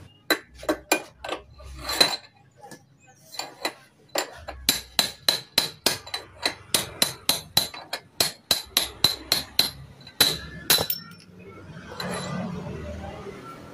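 Hammer blows on metal with a bright ring: a few scattered strikes, then a steady run of about three a second that stops near the end. This is hammering on a motorcycle's steering head bearing parts, the work of driving bearings or races out or in.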